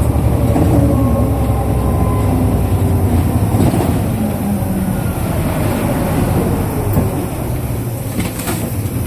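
Interior running sound of a 2005 Isuzu Erga KL-LV834L1 city bus slowing to a stop: a low engine and road rumble with a drivetrain whine falling in pitch as it decelerates, and a few brief clicks near the end.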